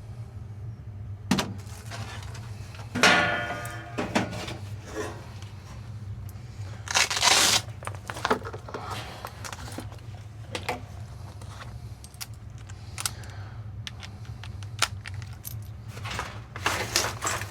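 Metallic clinks, clicks and short clatters from hands-on work at a furnace cabinet, as tools and sheet-metal parts are handled. They come as separate sharp sounds, the biggest about three seconds in, about seven seconds in and near the end, over a steady low hum.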